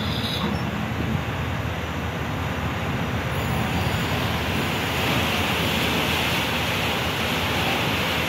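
Steady rushing rumble of the SS Badger car ferry manoeuvring to dock, with propeller wash churning the water at the stern; the hiss of the churning water grows louder about five seconds in.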